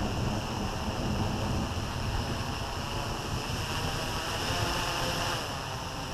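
Small FPV quadcopter's brushless motors spinning its propellers at idle while it sits on the ground, a steady whir that eases off slightly about five seconds in, with wind rumbling on the microphone.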